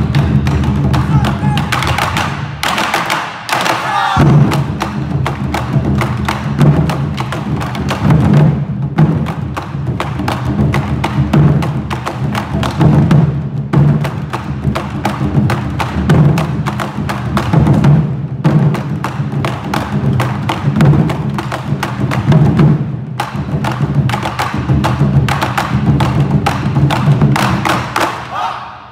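Taiko drum ensemble: several chu-daiko barrel drums struck with wooden bachi sticks, playing a fast, driving rhythm of heavy strikes. The low drum sound drops out briefly about three to four seconds in, and the playing stops just before the end.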